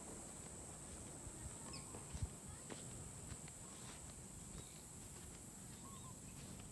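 Outdoor ambience: a steady high-pitched insect drone with a few short, faint bird chirps over a low rumble. A single soft thump about two seconds in.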